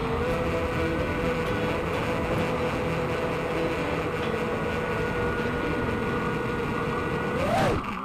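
Eachine Tyro 129 FPV quadcopter's brushless motors whining at a steady pitch, under heavy wind rumble. Near the end the whine rises and falls briefly, then breaks off suddenly.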